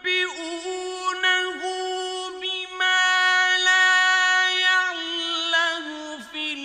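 A male Qur'an reciter's voice in the ornamented mujawwad style, drawing out one long vowel on a high, steady note with small melodic turns, without a breath. It grows louder about three seconds in.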